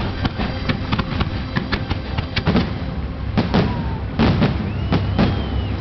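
Fireworks finale: shells bursting in rapid succession, several bangs a second, over a steady low rumble, with the densest volleys in the second half.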